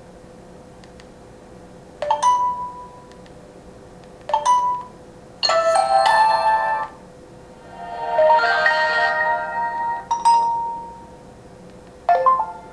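Nokia 800 Tough phone playing a series of short alert tones one after another: about six brief chimes and dings, each ringing on a moment, with a longer jingle near the middle.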